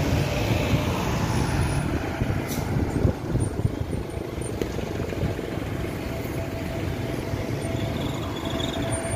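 Airbus A320-251N's CFM LEAP-1A turbofans on final approach: a steady rumble, with a thin steady whine that comes in about halfway through and grows louder near the end.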